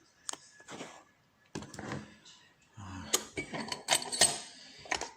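Small metal lock parts being handled as a Ruko lock cylinder is taken apart: a few single clicks, then a busier stretch of clicking and light metallic clinking over the last two seconds.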